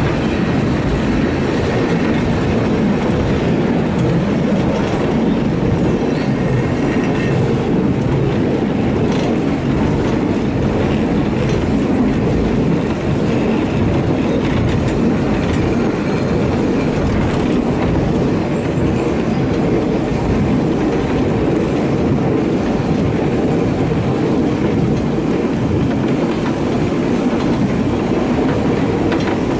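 Water-balanced cliff railway car running down its track: a steady rumble of the wheels on the rails.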